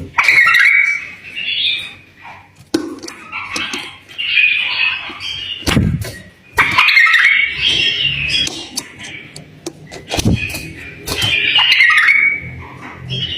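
A bulbul singing: bursts of short warbled phrases every few seconds. A few low thuds and sharp clicks fall between the phrases.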